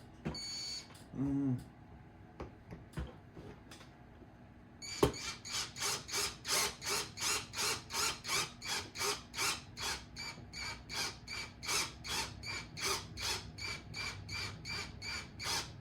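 Electric screwdriver driving a screw into the truck kit's plastic parts. From about five seconds in it runs with a steady hum and a rhythmic ticking about two and a half times a second.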